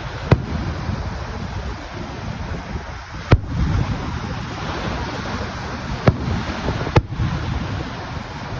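Fireworks going off: four sharp bangs a few seconds apart, the loudest about three seconds in, over a steady rumble of wind on the microphone.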